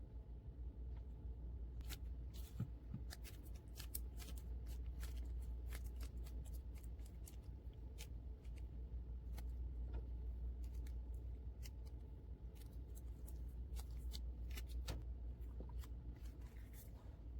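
Irregular light clicks and taps from hands working air clay and small plastic toy pieces, over a steady low hum.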